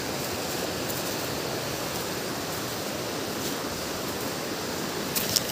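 Rushing river tumbling over rocks: a steady, even noise of fast white water. A few brief clicks come near the end.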